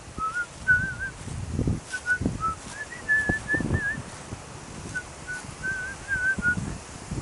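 Strong wind buffeting the microphone in repeated gusts, with a string of short, wavering whistled notes in several brief phrases over it.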